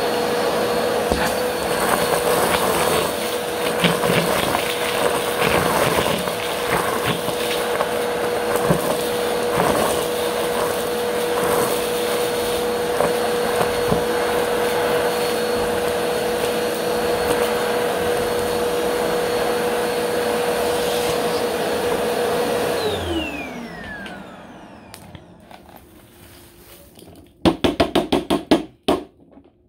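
Bagless upright vacuum cleaner running steadily through its hose and wand, with scattered crackles as confetti and glitter are sucked up. About 23 seconds in it is switched off and its motor whine falls in pitch as it winds down. Near the end comes a quick run of clattering as the collected debris is tipped out of the dust bin onto the carpet.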